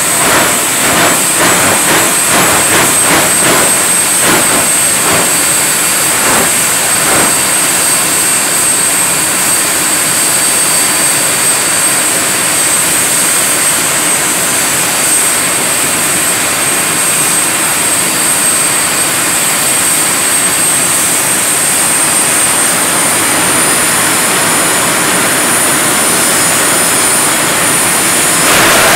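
Jet-powered funny cars' turbine engines running at the starting line: a loud, steady roar with a high whine that steps up slightly in pitch about 23 seconds in. There are irregular crackling pops in the first several seconds.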